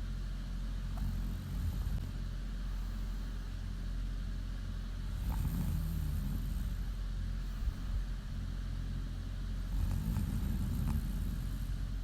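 A woman snoring in her sleep: three slow breaths about four to five seconds apart, each a low snore with a breathy hiss, over a steady low hum.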